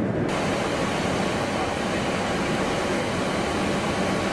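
Steady rushing noise on the flight deck of a Boeing P-8A Poseidon in flight, airflow and twin turbofan engine noise heard from inside. The upper hiss fills in abruptly just after the start.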